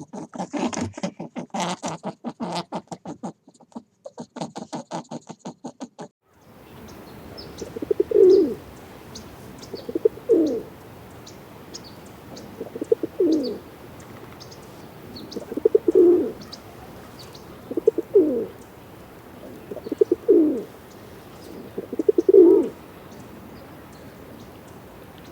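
A pigeon cooing: seven low calls, each bending in pitch, about two and a half seconds apart, with faint high chirps of small birds in the background. Before the cooing, for about the first six seconds, comes a fast, even run of small clicking or pattering sounds.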